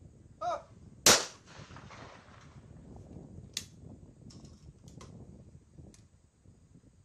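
A short shouted call for the target, then one loud 12-gauge over-under shotgun shot with a ringing echo, followed by a few much fainter clicks.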